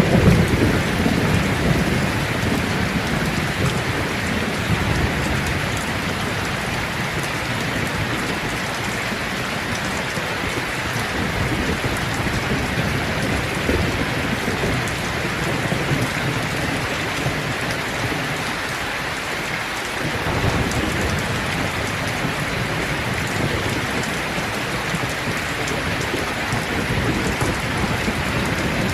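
Heavy rain pouring down steadily, a dense even hiss of falling water, a little louder and deeper in the first couple of seconds.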